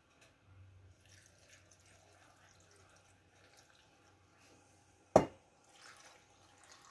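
Hot brine poured from a small stainless saucepan into a glass jar of green cherry tomatoes, a faint trickle and drip of liquid, with one sharp knock about five seconds in.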